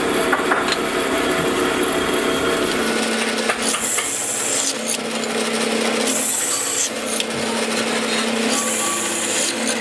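Bench drill press running with a steady hum while its bit drills into a cast aluminium exhaust-fan motor end cover, the harsher cutting sound coming in short bouts three times in the second half.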